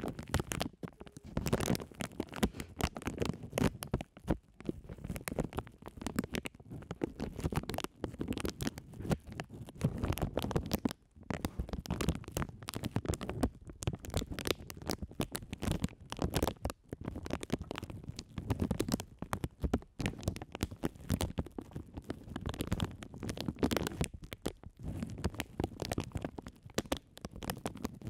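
Clear plastic bags crinkled and rustled directly on the microphones: a dense, irregular crackling with low rumbling handling noise, broken by a short pause about eleven seconds in.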